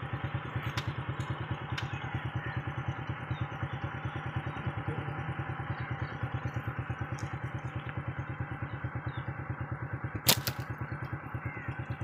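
Motorcycle engine idling with a steady, rapid pulse, and a single sharp snap about ten seconds in.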